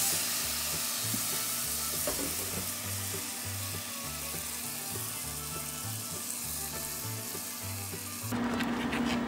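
Tomato sauce sizzling as it hits hot fried rice in a steel pot, the sizzle slowly dying down as the pot cools, over quiet background music with a bass line. Near the end the sizzle cuts off abruptly and a steady hum takes over.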